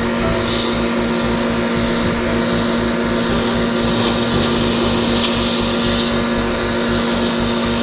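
Pressure washer running steadily with a constant motor tone, its water jet hissing as it blasts dirt off a concrete sidewalk.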